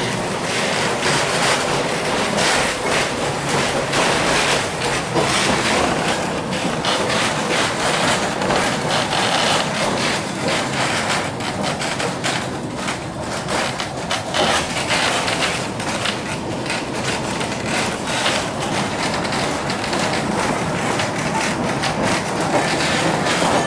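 Vintage streetcar, car 23 built in 1906 by the John Stephenson Company, running along its track, heard from inside the wooden car: a steady rumble of wheels on rails with constant clicking and rattling.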